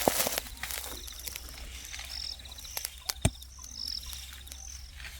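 Insects chirping in an even, repeating pattern: short high chirps over a faster pulsing trill. A sharp knock sounds about three seconds in, with a lighter one at the very start.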